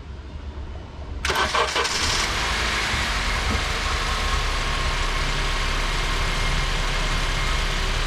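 A 2012 Honda Civic natural-gas four-cylinder engine is cranked about a second in, catches quickly and settles into a steady idle. The car has a misfire code set for cylinder 3 (P0303).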